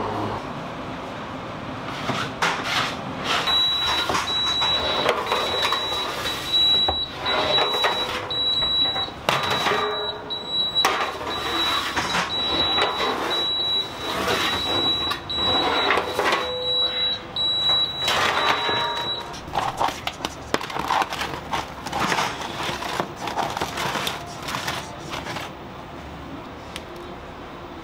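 An electronic beeper sounding a long run of high-pitched beeps for about fifteen seconds, starting a few seconds in, amid clattering and knocks.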